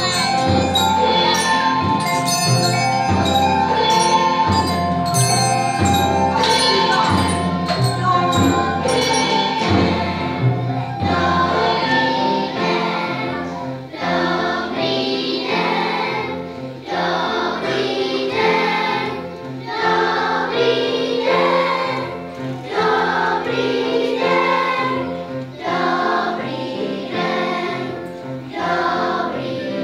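A choir of young schoolchildren singing a song together, with instrumental accompaniment. A steady beat with jingling percussion sounds under the voices for roughly the first ten seconds, then drops away, leaving mostly the singing.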